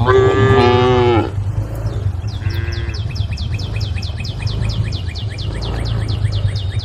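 Cow mooing loudly for about a second, its pitch falling at the end, then a shorter, fainter moo about two and a half seconds in. A fast series of high chirps, about seven a second, follows over a steady low hum.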